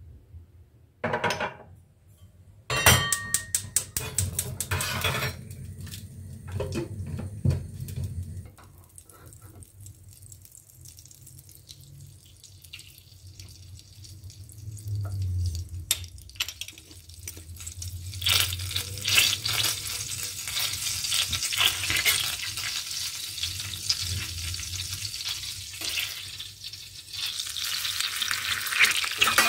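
Home kitchen cooking sounds. There are a few sharp knocks and clinks of utensils and dishes in the first several seconds, then a quieter stretch, and from about two-thirds through a steady crackling hiss of food being cooked and stirred.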